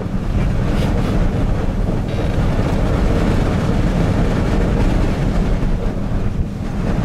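Strong sandstorm wind buffeting the microphone with a loud, steady low rumble, and a rushing noise of wind over the dunes.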